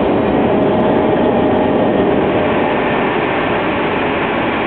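Cabin noise of a Lockheed L-1011 TriStar climbing after takeoff: the steady rush of airflow and the drone of its Rolls-Royce RB211 turbofans heard through the fuselage, with a faint steady whine.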